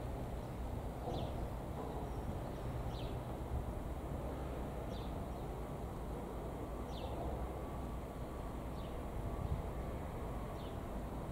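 Low steady rumble of a distant Class 450 third-rail electric multiple unit approaching, with a bird giving a short, high, falling chirp about every two seconds.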